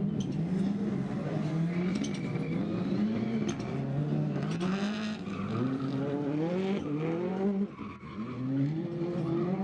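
Ford Fiesta R5+ rally car's turbocharged engine revving hard, its pitch climbing and dropping again and again through quick gear changes, with brief tyre squeals early on. Near the end it lifts off for a moment, then revs up again.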